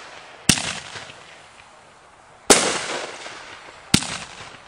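Consumer 1.4G aerial fireworks bursting overhead: three sharp bangs, about half a second, two and a half and four seconds in, each dying away in a fading echo.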